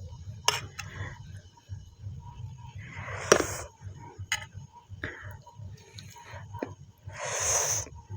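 Eating at a plate of rice and curry: scattered sharp clicks and clinks of the plate and utensils, with a few soft breathy bursts, over a low steady hum.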